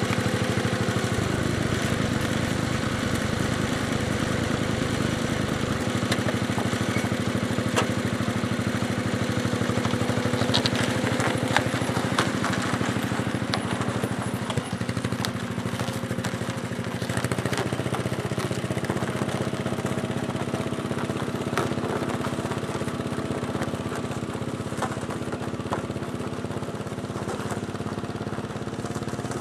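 1972 Sears Suburban SS15 garden tractor engine running steadily at low revs under load, pulling a water-filled 920 lb steel lawn roller. Scattered short clicks come through the engine sound in the middle, and the engine gets a little quieter near the end as the tractor moves away.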